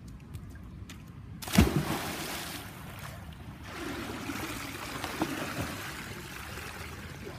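A few light slaps of bare feet running on a wet pool deck, then a loud splash about a second and a half in as a child jumps into a swimming pool. Water keeps churning and splashing afterwards as he swims and kicks.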